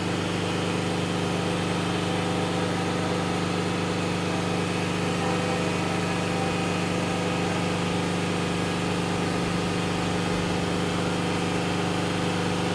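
Large engine idling steadily at an even pitch.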